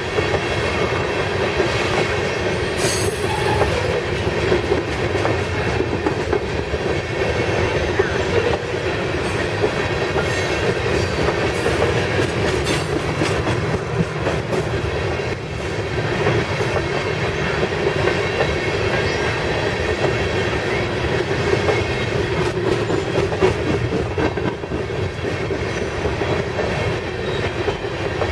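Coal cars of a long freight train rolling past close by: a steady rumble and clatter of steel wheels on the rail, with a brief high-pitched wheel squeal about three seconds in.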